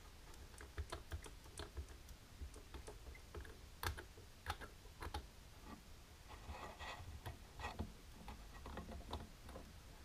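Long fingernails tapping and clicking on a nail polish bottle and its cap in irregular, sharp taps, the loudest about four seconds in. A short stretch of handling noise comes around seven seconds in.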